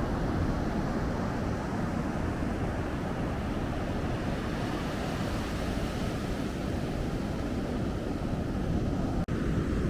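Steady rush of ocean surf mixed with wind rumbling on the microphone, with a momentary cut-out about nine seconds in.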